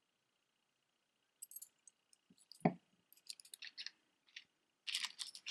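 Costume jewelry earrings clicking and clinking as they are handled and set down, in short scattered taps, with one duller knock about two and a half seconds in and a quick flurry of clicks near the end.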